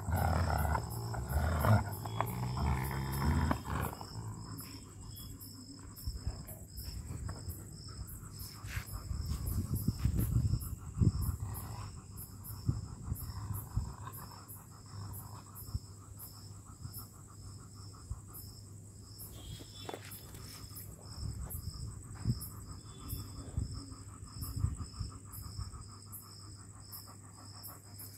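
A German Shepherd and a Rottweiler growling while tugging on a tyre. The growling is loudest and most continuous in the first few seconds, then comes back in shorter low growls now and then.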